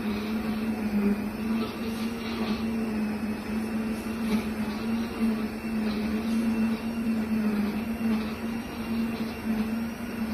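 Quiet-type cooking blender's motor running steadily at a constant speed, a smooth, even hum with a strong low tone and no changes in speed.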